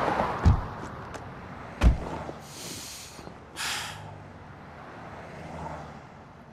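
Two dull thumps inside a car, the SUV's doors shutting about half a second and two seconds in, then a man's two long heavy sighs.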